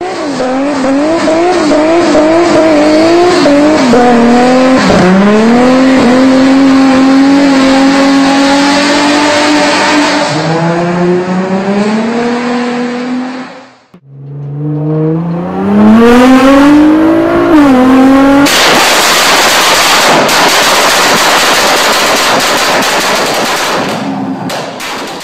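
Car engines revving hard in several clips cut together. First an engine is held at high revs with its pitch wavering up and down, then settles to a lower steady note, until a sudden cut about fourteen seconds in. A second engine then revs up in a rising climb, followed by about six seconds of loud rushing noise with no clear note.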